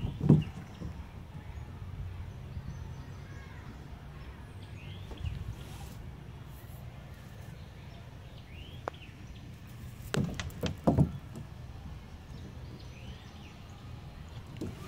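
A few dull thumps on a hollow plastic playground slide as a capuchin monkey climbs on it, two of them close together about two-thirds of the way through, over a steady low rumble, with a few faint short chirps now and then.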